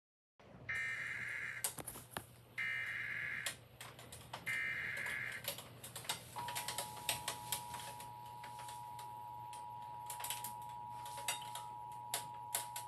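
Emergency Alert System tones: three one-second bursts of the buzzy SAME header data, then about six seconds in the steady two-tone attention signal, which sounds on through the rest. Sharp keyboard-like clicks are scattered throughout.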